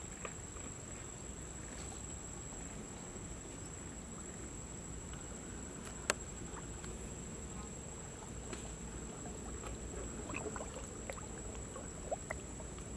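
Pond ambience over lily-pad-covered water: a steady hiss with a thin, steady high-pitched tone, small scattered drips and ticks, and one sharp click about six seconds in.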